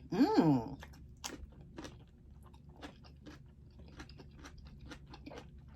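A person chewing crunchy food close to the microphone, with a quick string of crunches and wet mouth clicks, after a short appreciative hum at the start.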